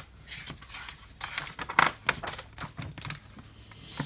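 Paper rustling and crinkling as magazine pages are handled and turned. It comes as a string of irregular short rustles and taps, loudest a little under two seconds in.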